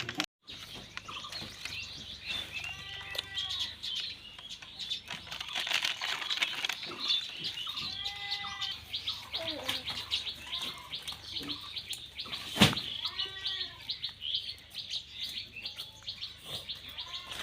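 Many small birds chirping rapidly and without a break. A louder, longer arching call comes three times, about five seconds apart, and there is one sharp click about two-thirds of the way through.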